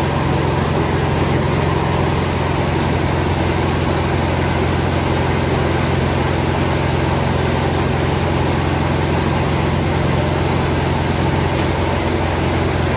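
Grain mill machinery running: a steady, loud drone with a deep hum that doesn't change.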